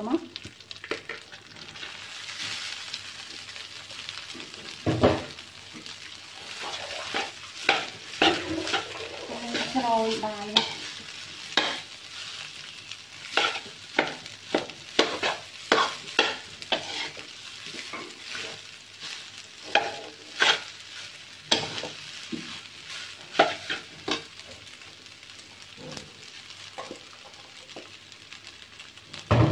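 Metal spatula scraping and knocking against a wok in quick, irregular strokes while rice is stir-fried with shrimp paste, over a steady sizzle.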